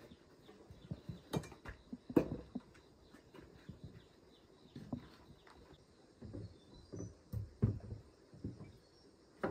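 Scattered light knocks, clatters and scuffs as a chainsaw and tools are handled, picked up and set down, the loudest knock about two seconds in.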